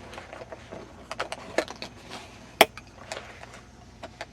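Padlocks being handled: scattered light clicks and taps, with one sharp knock about two and a half seconds in.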